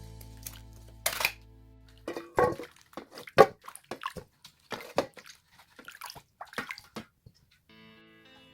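Water splashing and sloshing in irregular bursts for about five seconds, with soft background music before and after.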